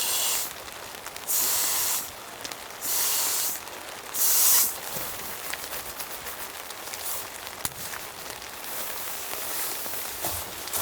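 Steady rain pattering, with scattered small drop ticks. In the first five seconds four short bursts of hiss stand out above it, each under a second long.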